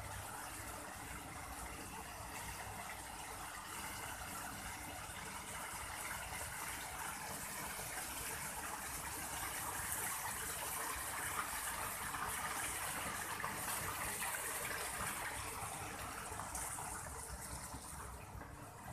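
Water pouring from a wall outlet and splashing steadily into a pond, swelling in the middle and easing off near the end.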